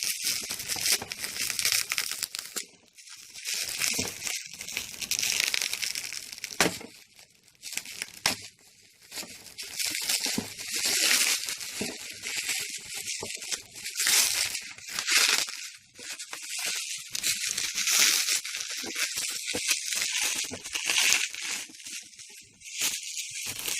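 Parcel packaging being torn open and crinkled by hand, in irregular rips and rustles that come and go every second or two.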